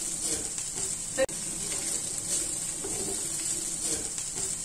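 Diced potatoes sizzling in oil in a non-stick kadai as a wooden spatula stirs and scrapes them while they roast. One short click about a second in.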